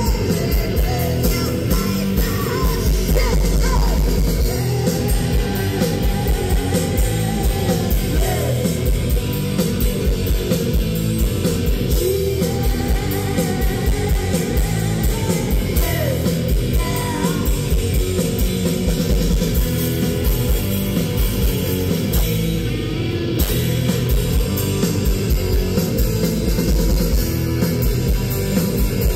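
Live punk-grunge rock band playing loud, with distorted electric guitar, bass and drums, and a woman's sung and shouted lead vocal at times.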